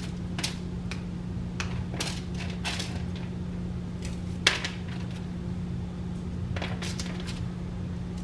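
Diced hash brown potato cubes clicking and rustling against each other and the aluminium foil lining of a baking sheet as they are spread by hand. There are scattered light clicks, the sharpest about four and a half seconds in, over a steady low hum.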